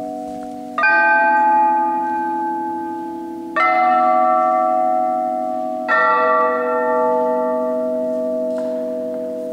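Bells struck three times, about a second in, about three and a half seconds in and about six seconds in. Each note is a clear chime that rings on and fades slowly, the rings overlapping.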